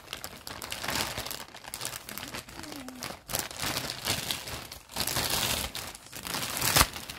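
Plastic mailer bag crinkling and rustling as it is handled, coming and going unevenly, loudest near the end.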